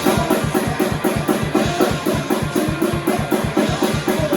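Loud rock band music: a drum kit pounding out a fast, even beat of about five hits a second, with guitar.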